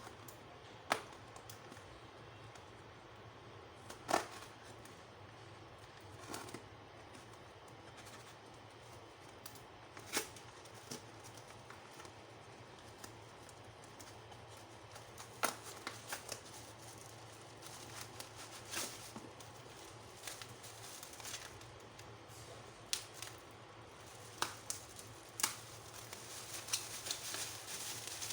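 Packaging being handled and opened by hand: scattered sharp clicks and taps with light rustling, becoming a denser crackling rustle near the end.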